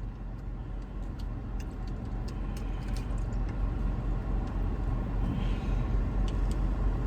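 A steady low rumble, with a few faint clicks and taps over it.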